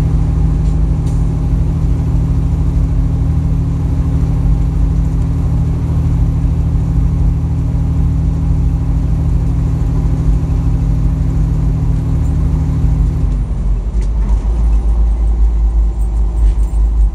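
Semi truck's diesel engine and road noise heard inside the cab at highway speed: a steady low drone. About two-thirds of the way through, the steady engine note drops away and a deeper rumble takes over.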